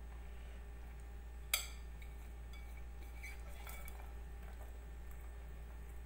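A sharp clink about one and a half seconds in, then a few faint taps and clinks, as diced carrots and chili pieces are pushed by hand off a ceramic plate into a stainless steel pan, over a steady low hum.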